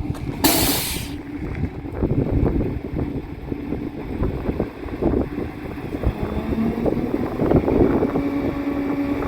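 Tow truck engine running, with wind buffeting the microphone. A short, loud hiss comes about half a second in, and a steady hum rises over the last few seconds.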